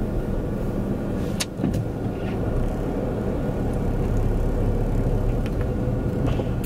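Steady low rumble of a car heard from inside the cabin while driving, with a single sharp click about a second and a half in.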